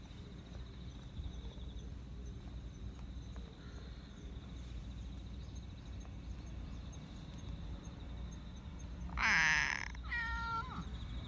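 Black cat meowing twice near the end: a loud meow, then a shorter one that falls in pitch.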